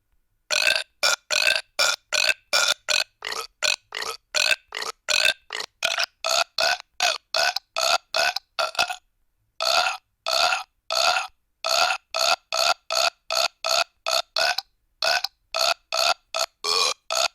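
A rapid string of short burps, one after another at about two or three a second, with a brief pause about nine seconds in.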